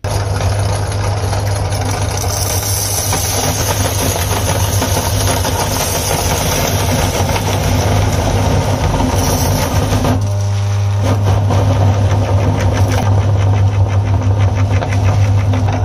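Electric meat grinder switched on, its motor running with a steady low hum while the auger crushes hard-shelled M&M candies into a dense crunching rattle. About ten seconds in, the crunching briefly drops away, leaving the motor alone, then resumes.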